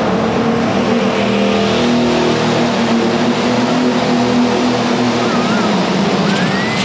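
Light limited super stock pulling tractor's engine running at full power under load as it pulls the sled down the track, a loud steady drone with its tyres spinning.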